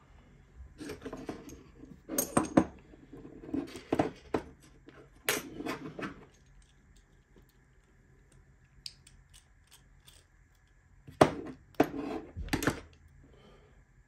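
Small metal clicks and clinks as a CX5 lock cylinder is taken apart by hand, a slim metal tool tapping and pushing at its pins. Clusters of clicks come in the first half, a few faint ticks follow, then several sharp clicks near the end.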